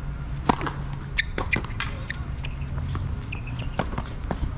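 Tennis serve and rally on a hard court. A sharp racket strike on the ball comes about half a second in, followed by further hits and ball bounces. A few short high squeaks come in the second half.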